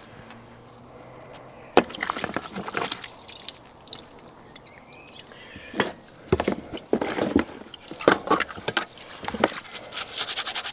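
A paintbrush scrubbing rusty steam engine parts in a plastic tub of petrol thinned with diesel: brushing and liquid splashing in short bouts, with a sharp knock about two seconds in.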